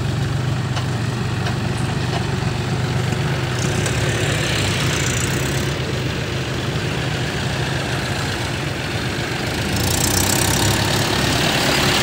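Mahindra Yuvo 575 DI tractor's diesel engine running steadily under load while pulling a loaded trolley, getting a little louder about ten seconds in.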